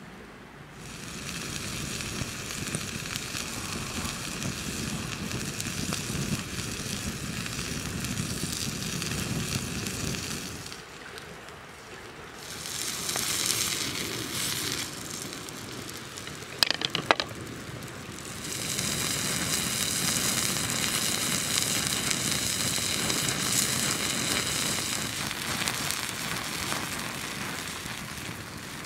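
Beef patty sizzling on a hot flat stone over an open wood fire, with the fire crackling beneath. The sizzle comes in three long spells, and a brief clatter of sharp clicks sounds about halfway through.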